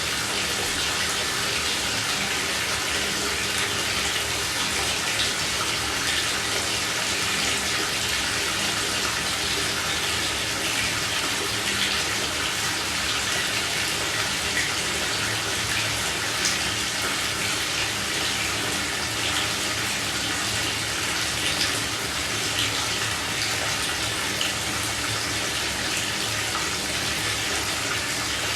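Shower running: a steady spray of water splashing down, with small irregular splashes scattered through it.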